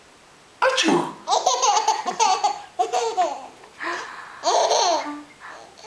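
A sudden sneeze about half a second in, followed by a baby giggling in short repeated bursts.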